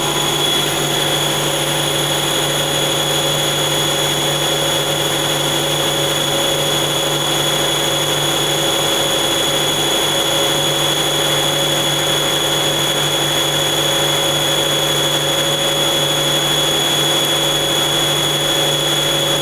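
Mazak CNC lathe cutting under program control: a steady machine hum and a high spindle-drive whine over the hiss of coolant spray, unchanging throughout.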